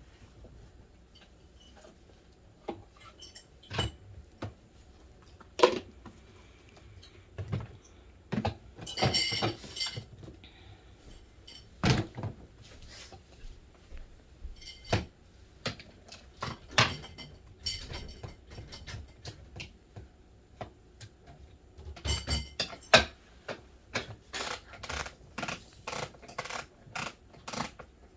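Toy kitchen dishes and utensils clicking, clinking and knocking irregularly as pretend soup is made with Play-Doh, with two brief bursts of rattling, about nine seconds in and again about twenty-two seconds in.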